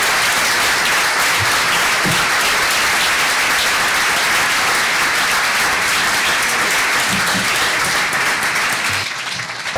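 Audience applauding: steady clapping from a seated crowd, thinning out near the end.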